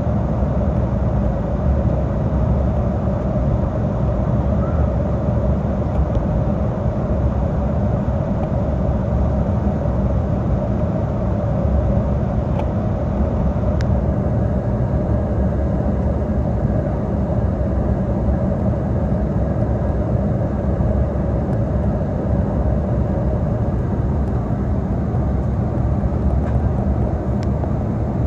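Steady in-flight cabin noise of an Embraer E175 airliner: the rush of air along the fuselage and the drone of its twin GE CF34 turbofan engines, a deep rumble with an even hum over it.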